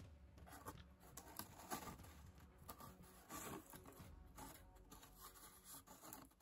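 Near silence with faint scattered scrapes and taps of a cardboard model being handled: the door panel is pulled away and the box is gripped.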